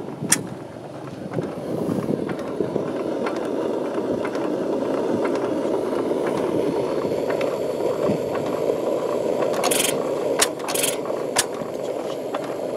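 Kirkness No. 1 oil engine running, a steady rushing mechanical noise with a few sharp clicks near the end.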